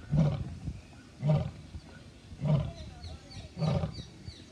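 Lion roaring in a series of deep grunting calls, four of them about a second apart.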